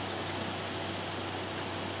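Steady mechanical drone with a constant low hum under a broad rushing noise: site machinery running without change.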